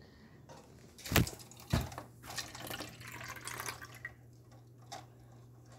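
Two sharp knocks about half a second apart, a little over a second in, as red plastic party cups are struck, followed by faint light tapping and patter.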